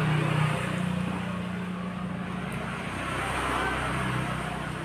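An engine running: a steady low drone that slowly fades.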